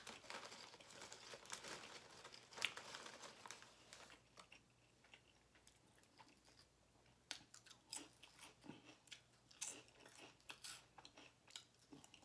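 Faint close-up chewing of a cheese steak sub on crusty bread, with small crunches and wet mouth clicks. It goes quieter for a few seconds in the middle, then a run of soft smacks and clicks comes near the end as another piece goes into the mouth.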